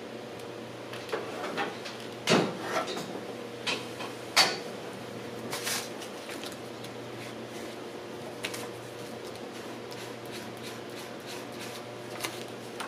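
Plastic squeegee scraping over vinyl decal in short strokes, the loudest about two and a half and four and a half seconds in, pressing out creases and bubbles. A steady low hum runs under it.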